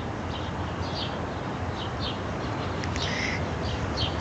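A small bird chirping over and over in short high notes, about two a second, over a steady outdoor background noise.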